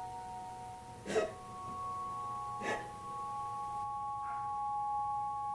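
Ambient film score of held, steady ringing tones, with a higher tone coming in about a second in. Two brief soft sounds about a second and a half apart.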